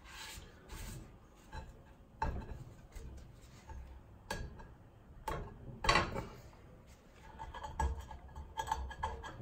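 Hardened burnt caramel being picked and rubbed at on a non-stick frying pan with a paper towel and fingertips: scattered rubbing and scraping, with light clicks and knocks from the pan and the brittle sugar.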